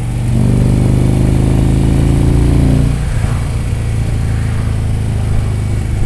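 Touring motorcycle's engine running on the road, pulling harder and louder for about two and a half seconds, then easing back to a steady cruise, with wind rushing past.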